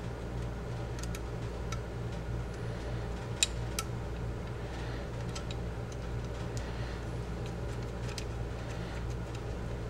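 Light, irregular metal clicks of an Allen key turning a bolt into the steel receiver of a Saiga 12 shotgun, the two sharpest about three and a half seconds in, over a steady low hum.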